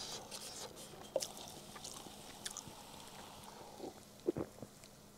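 Cola poured from a bottle into a paper cup and drunk: a soft fizzing pour, then a couple of loud gulps a little after four seconds in.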